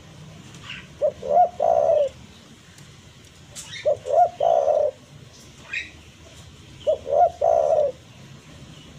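Spotted dove cooing its song three times, about three seconds apart: each phrase is two or three short coos followed by one longer drawn-out coo.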